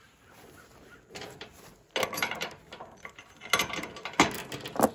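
Steel chain links clinking and rattling as the chain is gathered and its hook set into a trailer's attachment point, in several irregular clusters of clatter, the loudest near the end.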